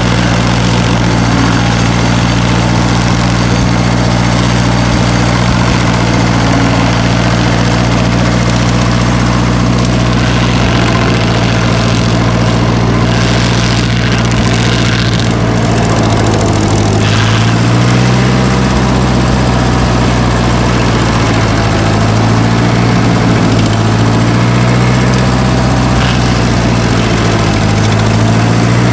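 A machine's engine running steadily. In the second half it speeds up and slows down several times, as if being throttled or loaded in work.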